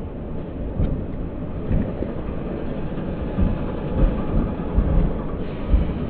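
A train running past, a steady low rumble with irregular deep thumps.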